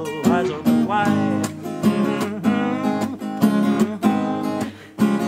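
Acoustic guitar strummed in a steady rhythm of about two strokes a second: the closing bars of a song.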